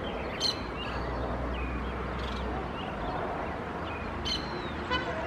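Small birds chirping in short, scattered high calls, one of them a falling whistle, with a quick run of ticks just before the end, over a steady low background rumble.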